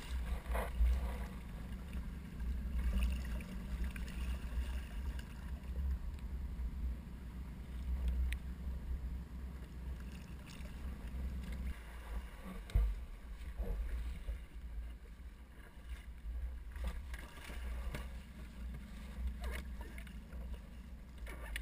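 Steady low rumble of wind and water against an inflatable boat's hull, with scattered knocks and water splashes as a gaffed fish is worked alongside. One louder thump comes about 13 seconds in.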